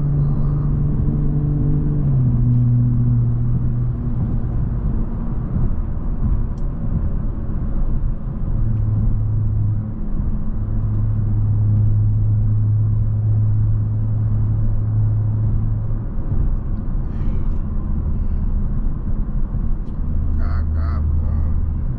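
Straight-piped BMW 540i under way, its exhaust drone and road rumble steady, with the engine note stepping lower a few times as the revs change.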